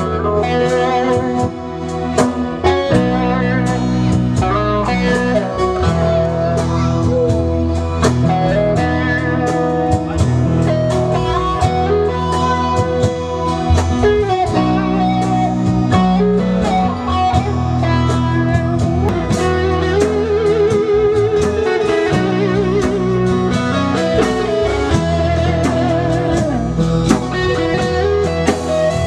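Live band playing amplified instrumental music, with electric guitar lines over bass and drums.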